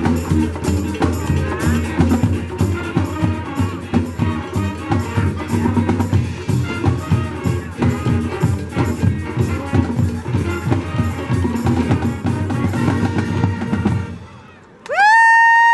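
High school band playing with a steady drum beat: drum kit, bass drums and snare under brass and sousaphone. The music stops shortly before the end and is followed by a loud, high whoop that rises, holds and falls.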